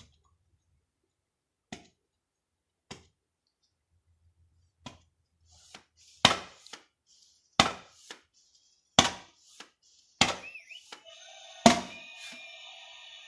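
A toy air-push foam-ball gun firing at a duck target, giving a run of sharp knocks. A few faint ones come first, then five loud ones about every second and a half. Near the end the scoring target's electronic sound effect starts up.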